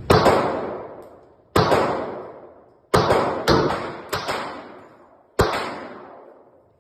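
A Glock 29 Gen 5 10mm pistol fires six shots at an uneven pace, some about half a second apart and others a second and a half apart. Each shot rings on in the echo of an indoor firing range.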